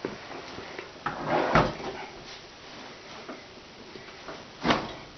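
Knocks and clatter of hands working on a dishwasher as it is fastened into its cabinet opening: a rattling knock about a second and a half in and a sharper single knock near the end.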